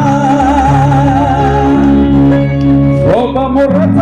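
A man singing a long, high held note with vibrato over a live band with keyboard and guitars, then sliding up into another held note about three seconds in.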